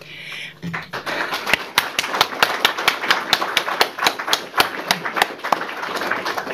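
A small audience applauding, the clapping starting about a second in.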